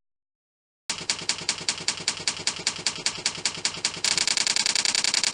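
A fast, even run of clicks, about eight a second, starting about a second in. About four seconds in it gets louder and brighter.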